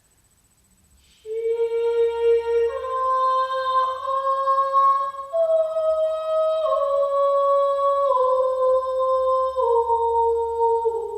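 A woman's voice chanting long held notes, starting suddenly about a second in after a near-silent pause. Each note holds for a second or more before stepping to the next, first rising in pitch and then gradually falling.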